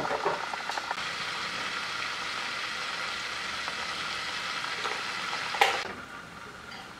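Steady sizzling hiss from butter heating in a pan on the stove, with a sharp knock about five and a half seconds in, after which the sizzle drops away.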